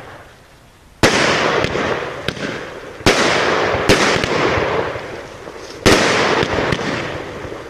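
Aerial fireworks bursting overhead: three sharp bangs a couple of seconds apart, each followed by a dense crackle that fades away.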